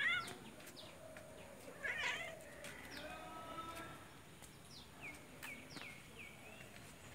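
Domestic cats meowing: a short meow at the start and another, rougher meow about two seconds in.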